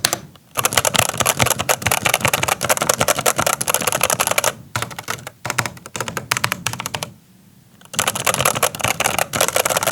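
Fast typing on a Rapoo V500 Pro full-size mechanical keyboard with brown switches: a dense run of key clacks, a sound the reviewer finds hollow. The typing breaks off briefly about half a second in and again around five seconds, and stops for nearly a second about seven seconds in before resuming.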